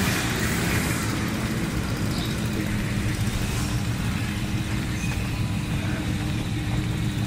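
Steady low background rumble with a faint steady hum and no distinct events.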